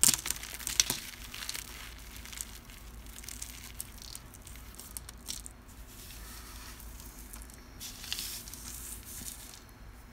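Cornstarch being crunched and crumbled with small crackly crunches. The loudest burst comes right at the start, scattered crackles follow, and another crunchy cluster comes near the end.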